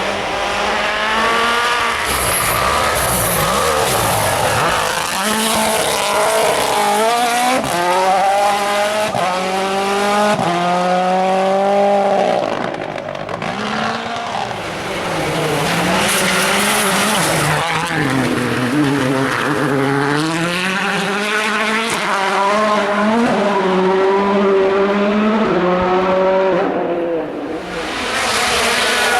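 2016 World Rally Car's 1.6-litre turbocharged four-cylinder engine running hard on a rally stage, its pitch climbing and dropping again and again through gear changes and lifts.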